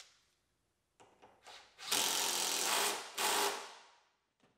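A power tool runs a bolt down in two bursts, a longer run of about a second and then a shorter one, after a few light clicks.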